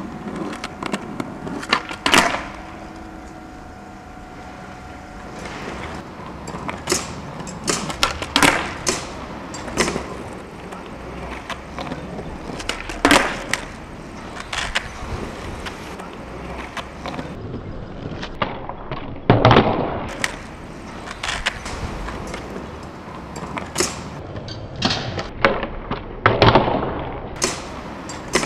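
Skateboard rolling over concrete paving, with repeated sharp pops and clacks as the tail snaps down and the board lands back on the ground during switch ollie late flip attempts.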